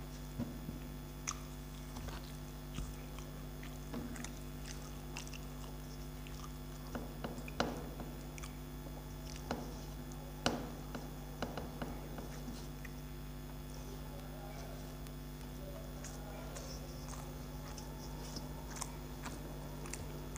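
Eating rice by hand from a steel plate: fingers mixing and scooping rice with scattered light clicks against the metal, along with chewing.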